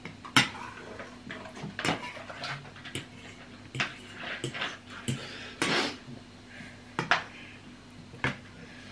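Metal fork and spoon clinking and scraping against a bowl while eating noodles, in sharp separate clicks about once or twice a second with a few longer scrapes.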